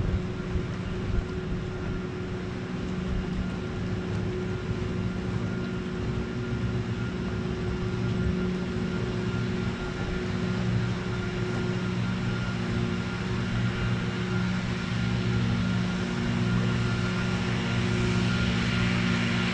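A steady motor drone holding one constant pitch, with a rough noise underneath, getting a little louder over the last few seconds.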